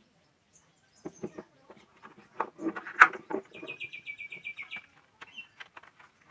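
Packaging handled with scattered taps and clicks, the sharpest about halfway through, and a quick bird trill of about ten rapid notes just after.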